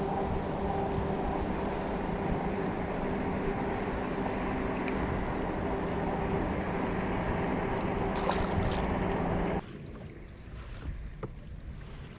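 Boat motor running steadily with a constant hum, cutting off suddenly near the end; a few small knocks and clicks follow in the quiet.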